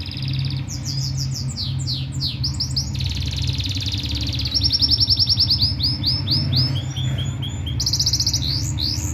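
A canary cross (hybrid canary) singing a continuous song of fast rolling trills: long runs of rapidly repeated buzzy notes alternate with series of quick sweeping notes. A steady low hum runs underneath.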